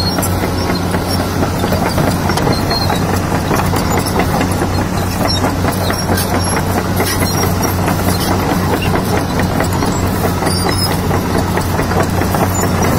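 Kobelco crawler excavator travelling: its diesel engine runs at a steady hum under the dense clatter of the steel tracks.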